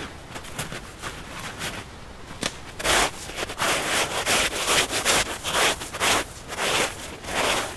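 Rhythmic back-and-forth strokes of something rubbing hard against wood, faint at first and growing stronger about three seconds in, at about two strokes a second.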